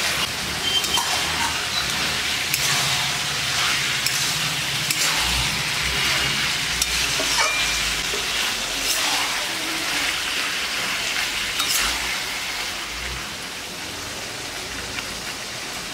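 Chicken pieces sizzling in a pan of onion and spice masala as they are stirred, with a spatula scraping and clicking against the pan now and then. The stirring thins out and the sizzle gets a little quieter over the last few seconds.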